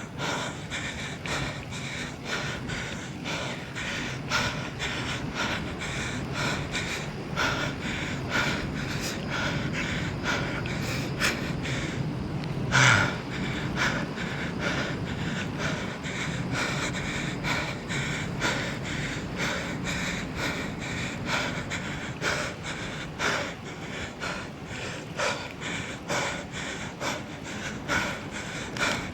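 A person breathing heavily and panting, out of breath from walking up a steep hill. The breaths come in quick, repeated pulses, with one louder breath about halfway through.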